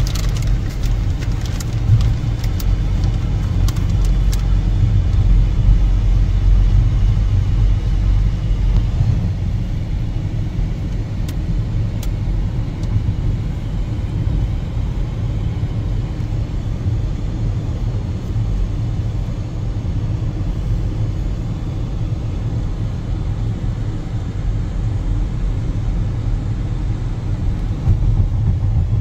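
Loud, steady low rumble, with a few faint clicks in the first few seconds.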